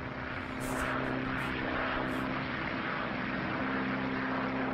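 Steady drone of a propeller airplane's engine on an old film soundtrack: a hum of several even tones under a constant hiss.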